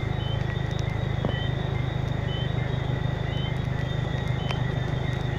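Steady rain falling, with scattered drip ticks over a low steady rumble. A short high chirp repeats about once a second throughout.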